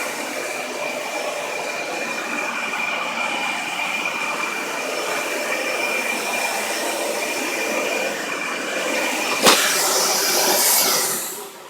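Dyson Ball Multi-Floor upright vacuum running on carpet with its brush bar on: a steady rush of air with a high motor whine. About two seconds before the end there is a click and a brief louder hiss, then the motor winds down, its whine falling in pitch.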